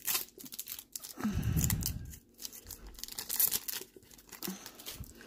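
A trading-card pack wrapper being torn open and crinkled by hand: irregular crackling and tearing, with a short low hum about a second in.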